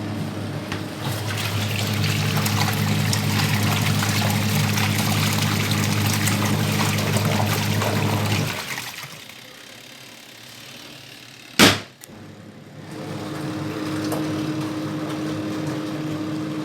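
Twin-tub washing machine's wash motor and gearbox running, churning water with a steady hum, as the machine is run with its replaced gearbox. The motor stops about eight and a half seconds in, a single sharp click sounds a few seconds later, and the motor starts again with a different hum near the end.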